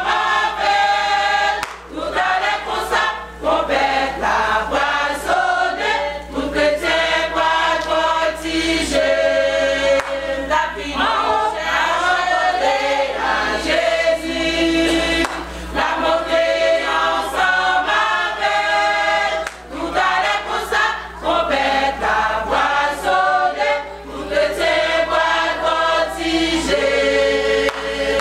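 Women's church choir singing a worship song, many voices together, continuous throughout.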